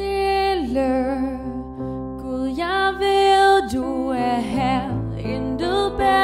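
A worship band playing a slow, gentle song: piano and bass hold sustained notes underneath while a melody line with vibrato rises and falls in long held phrases.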